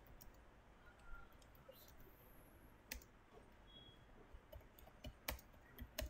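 Faint, irregular clicks of a computer keyboard being typed on; the loudest keystroke comes a little over five seconds in.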